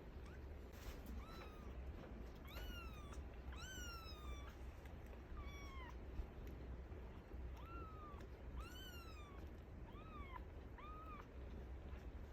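Two-week-old kittens mewing: about eight short, high-pitched mews, each rising and then falling in pitch, over a faint steady hum.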